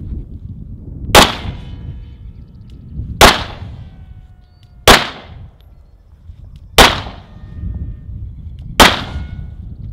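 Five pistol shots fired at a steady pace, about two seconds apart, each followed by the brief metallic ring of a struck steel target.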